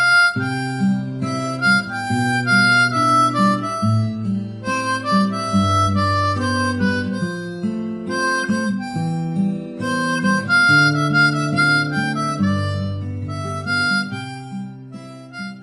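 Instrumental background music: a melody over a bass line, getting quieter toward the end.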